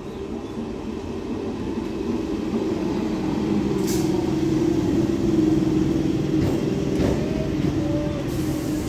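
Electric multiple unit (EMU) local train rolling into the station past the platform, the rumble of its wheels on the rails growing louder as the coaches draw level. A sharp click sounds about four seconds in, with a few fainter ones later.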